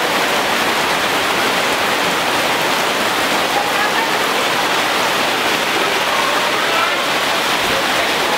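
Heavy rain falling steadily on trees, leaves and roofs.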